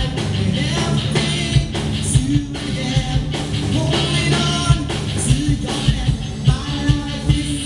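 A live rock band playing a song: a male singer over a drum kit, electric guitar and keyboard, with a steady drum beat.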